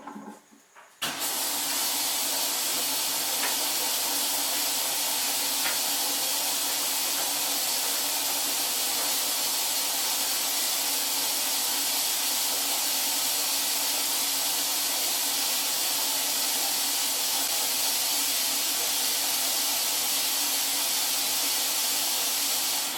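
Esatto front-loading washing machine filling, water hissing steadily through the inlet into the drum. It starts abruptly about a second in and cuts off sharply near the end, as the inlet valve opens and closes.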